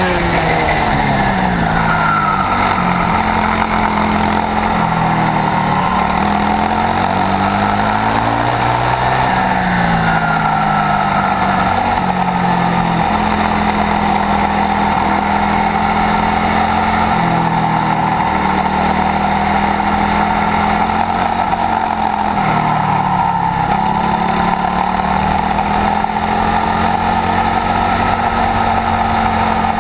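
Swissauto 250 kart engine at racing speed, revving up and falling away again and again, with several sudden pitch changes as it is driven through a lap.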